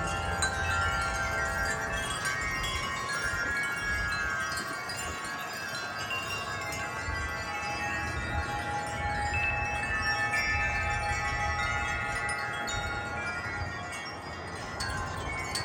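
Several wind chimes ringing in gusty wind, their many tones overlapping and sustaining, with wind rumbling on the microphone.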